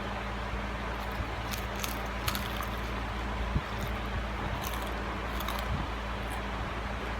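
Crispy fried chicken being bitten and chewed: short crunches and crackles, mostly between about one and six seconds in, over a steady low hum.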